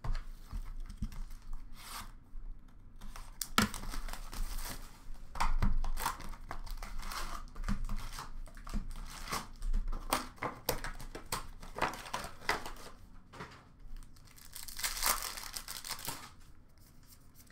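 Plastic wrapping being torn off a box of hockey cards and crumpled, then the cardboard box opened and the card packs handled: irregular tearing and crinkling with a few sharp clicks, loudest about six seconds in and again near fifteen seconds.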